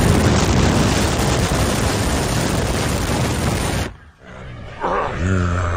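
Loud wind rush and engine and road noise from a car moving fast on a highway with the window down. It cuts off suddenly about four seconds in, and music with a heavy bass line begins about a second later.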